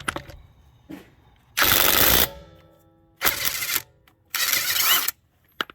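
Ryobi 18V ONE+ HP brushless impact wrench hammering on a pickup truck's lug nut through a 7/8 socket, in three bursts of under a second each with short pauses between. The tool is in its auto mode. After the first burst the socket and wheel ring briefly.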